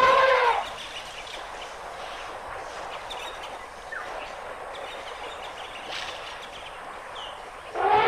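African elephant calls: a loud, horn-like call with a few clear pitches fades out about half a second in, and another begins near the end. Between them, a quieter steady outdoor hiss with a few faint, short bird chirps.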